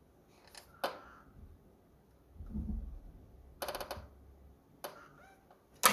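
Faint scattered clicks and knocks of handling, with a quick rattle of several clicks about three and a half seconds in, a brief low rumble just before it, and one sharp click near the end.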